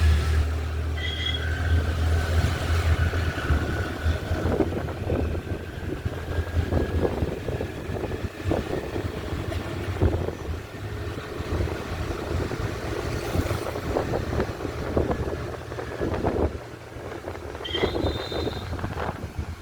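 Car on the move: steady low rumble of engine and road noise. Short high-pitched tones sound twice, about a second in and near the end.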